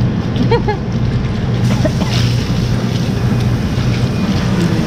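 Steady low hum and background noise of a busy grocery store, with a brief voice about half a second in.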